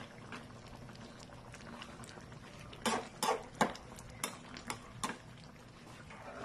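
Beef stew simmering in a stainless steel pan, stirred with a metal spoon. The spoon clinks and scrapes against the pan in a quick run of six or seven knocks between about three and five seconds in.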